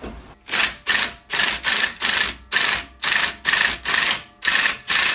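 Hand ratchet wrench tightening a suspension bolt: a steady run of ratcheting strokes, about two a second, each stroke a short burst of clicks.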